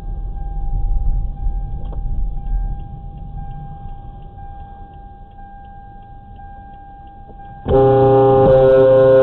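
Vehicle horn sounding loudly for about two seconds near the end, over low road and engine rumble heard from inside a car. Under the rumble there is a faint steady whine and a light, regular ticking.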